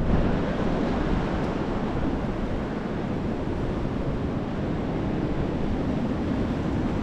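Ocean surf washing onto the beach, with wind buffeting the microphone: a steady rushing noise with no distinct breaks.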